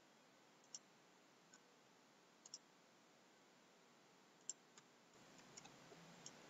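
Faint computer mouse clicks, single and double, scattered irregularly over near-silent room hiss.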